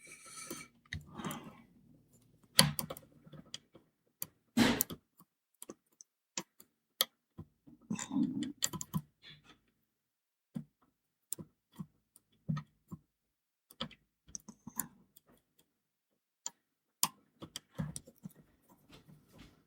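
Lock pick and tension tool working the pin stack inside a Belfry 67 padlock: irregular small clicks and short scrapes as pins are lifted and set.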